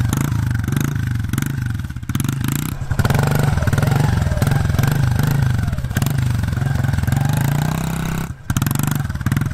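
Honda CRF110F's fuel-injected single-cylinder four-stroke engine revving up and down repeatedly as the rider pulls wheelies. About eight seconds in the engine note briefly drops away before picking up again.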